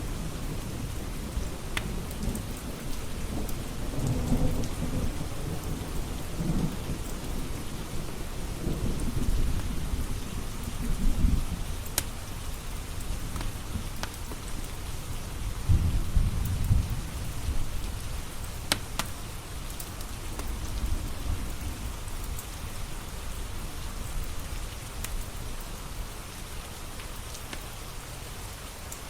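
Steady rain with low rolls of thunder that swell and fade, the loudest about sixteen seconds in. A few sharp pops from a crackling wood fire sound over it.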